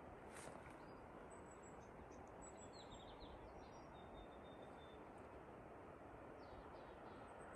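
Near silence: faint, short, high chirps and whistled notes of small birds, several in the first half and a few more near the end, over a steady low outdoor hiss.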